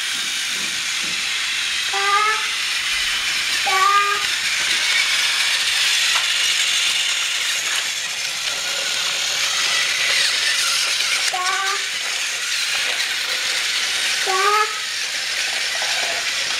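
Steady whirring hiss of battery-powered TrackMaster toy train motors and wheels running on plastic track. Four short high-pitched tones sound over it, two close together and two near the end.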